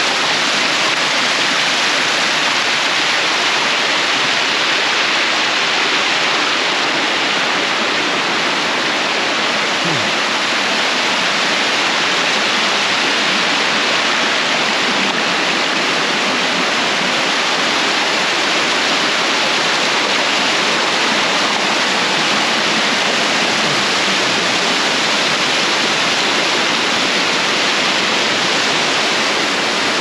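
Uracher Wasserfall in full spate: a loud, steady rush of falling water, swollen by unusually high flow.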